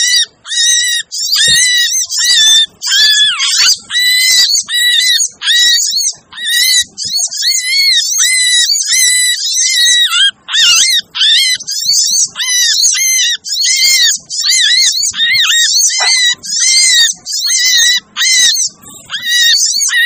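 Sunbirds calling in a busy, agitated burst: rapid high chirps and chattering phrases follow one another almost without a break. This is a sunbird lure call, played to draw wild sunbirds in.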